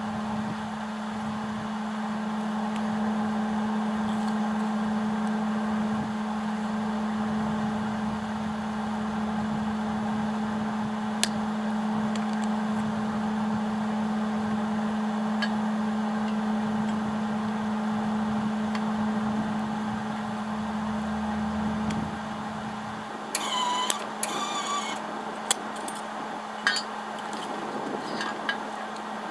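A machine running with a steady low hum and a hiss, stopping about 23 seconds in, followed by several sharp metallic clinks.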